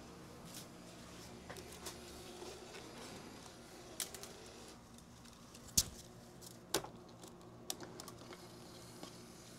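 Scattered plastic clicks and knocks as a PLA filament spool is handled and seated on the spool holders of a Bambu Lab AMS Lite filament unit. The two loudest knocks come about six and seven seconds in, over a faint steady hum.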